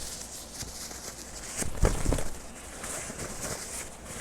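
Anime sword-fight sound effects: a rushing hiss with one heavy low impact about two seconds in.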